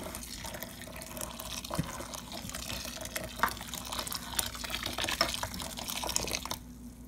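Boiling water pouring in a steady stream into a plastic basin of pork intestines, scalding them so they firm up. Chopsticks stirring in the basin give a few light clicks, and the stream stops near the end.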